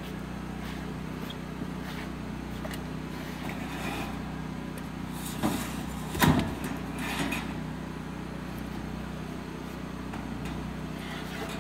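A steady low engine hum runs throughout. A few knocks and clatters come about halfway through, the loudest about six seconds in.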